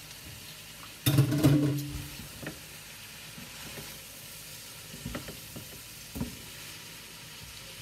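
Macaroni frying in a pan with a low, steady sizzle, stirred with a spoon. There is a louder clatter about a second in and a few light knocks later.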